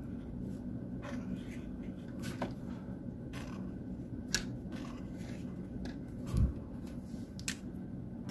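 Brush tip of a Tombow Dual Brush Pen stroking across paper as a word is lettered: faint, short scratchy strokes over a low steady hum, with a dull thump about six seconds in.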